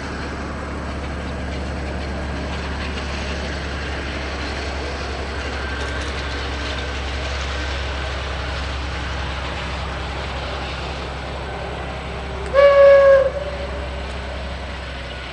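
ÖBB class 2067 diesel-hydraulic shunter running steadily with a low engine drone as it hauls passenger coaches past. About twelve seconds in it gives one short, loud single-tone horn blast.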